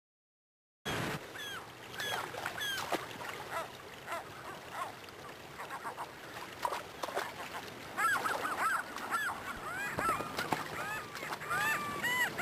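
Gulls calling: many short, overlapping calls that get busier about eight seconds in, over the steady rush of river water. The sound starts suddenly about a second in.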